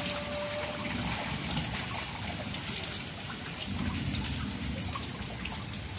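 Steady rain falling into shallow standing floodwater, with scattered small splashes of feet wading through it.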